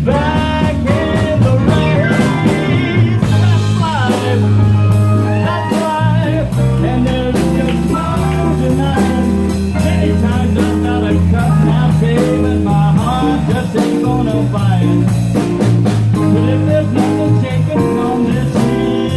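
Live band music: a man singing into a handheld microphone over electric bass guitar and drum kit.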